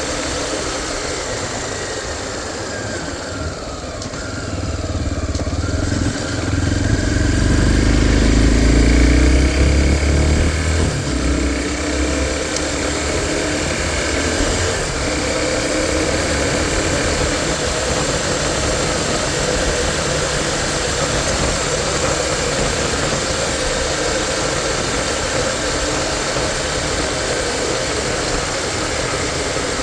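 Tornado 250 motorcycle engine running. Its revs climb over a few seconds and peak about a third of the way in, then drop back, and it settles into a steady run.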